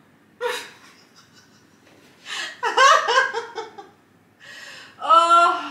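A woman's exasperated wordless vocalising: a quick breath, then a loud laughing groan about two seconds in, a long breathy exhale, and a shorter groan near the end.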